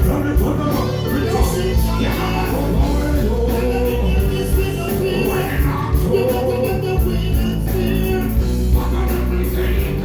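Loud music with a singing voice over a heavy, steady beat.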